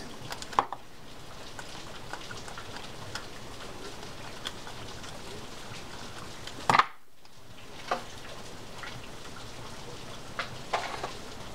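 Small metallic clicks and ticks of a screwdriver turning the side-plate screws of a Penn Senator 4/0 reel, over a steady background hiss. The screws are being started and partly tightened. The sharpest click comes about seven seconds in.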